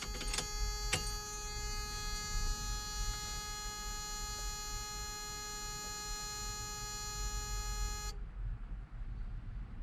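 A steady, high-pitched electronic buzzing tone with many overtones, which cuts off suddenly about eight seconds in, over a continuous low rumble.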